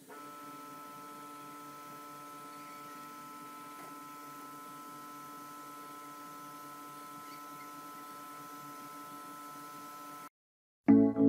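Steady hum of compressed-air spray-finishing equipment running, with a faint hiss over it, cutting off abruptly about ten seconds in.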